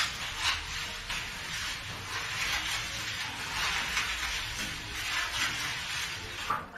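Dry crunching and rustling in repeated bursts, like an animal chewing hay and grass. It is foley made by squeezing a dry, crumbly material in the hand in front of a microphone.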